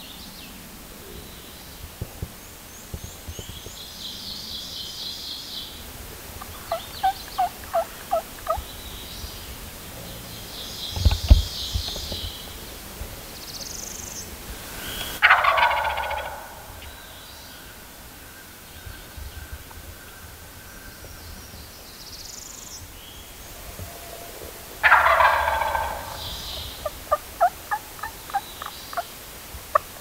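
Wild turkey gobbler gobbling twice at close range, a loud rattling gobble about fifteen seconds in and another near twenty-five seconds. A low thump comes just before the first gobble.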